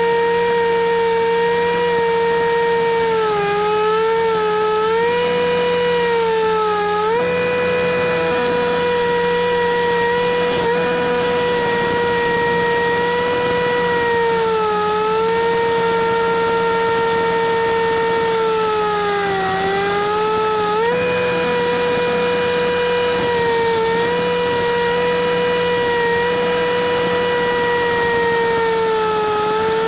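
Concrete cutting saw running steadily, its pitch sagging and recovering several times as the blade takes load in the cut.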